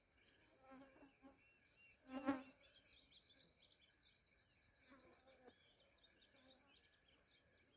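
Faint, steady high-pitched insect chorus with a fine, fast pulsing trill, and a brief faint pitched sound about two seconds in.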